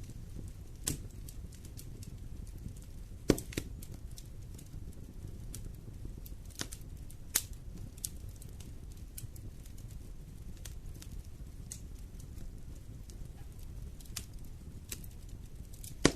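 Wood fire burning in a fireplace: a steady low rumble of the flames with scattered crackles and sharp pops, the loudest about three seconds in and another near the end.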